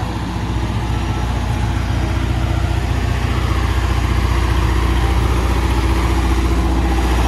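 Motor vehicle engine running steadily with a low hum, growing a little louder over the first few seconds.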